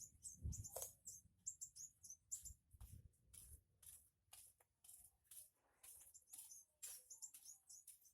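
Faint, rapid high-pitched chirping of small birds, many short calls in quick succession, with a couple of soft low thuds in the first half.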